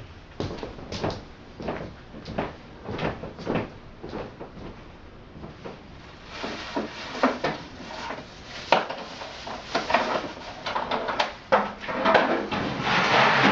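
Rummaging through a drawer of tools: irregular clinks, knocks and clatter of metal and plastic, getting busier near the end.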